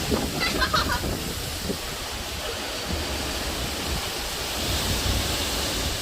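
Hurricane Zeta's strong wind blowing steadily, buffeting the microphone with a low rumble.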